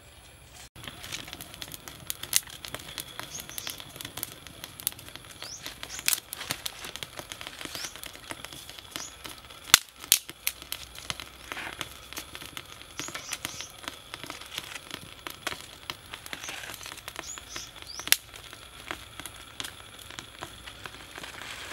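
Small freshly lit twig fire crackling and popping in a stone stove, with irregular sharp snaps, the loudest about halfway through. Birds chirp briefly now and then in the background.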